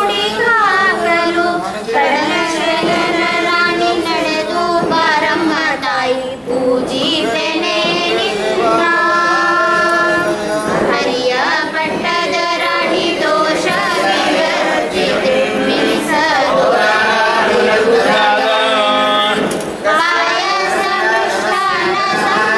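Voices singing a devotional song during the puja, with brief dips in the singing about six seconds in and again near the end.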